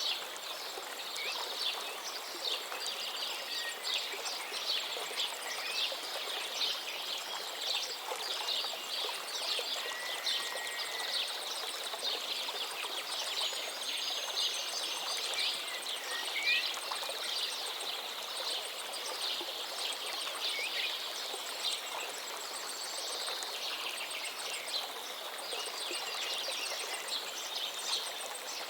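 Many small birds chirping and twittering rapidly over the steady rush of flowing water, with an occasional lower, slurred whistle.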